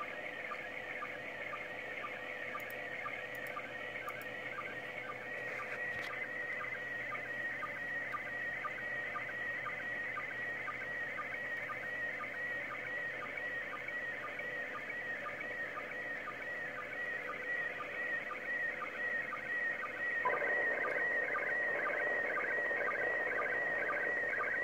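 Slow-scan TV signal from the International Space Station received on 2 m FM: a warbling pattern of tones that repeats about twice a second, each repeat one pair of scan lines of a PD120 picture being sent. About 20 seconds in a hiss of static rises under the tones as the station moves away toward the horizon.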